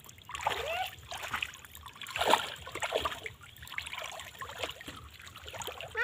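Shallow floodwater splashing and dribbling in irregular bursts as hands work through a fishing net and bucket.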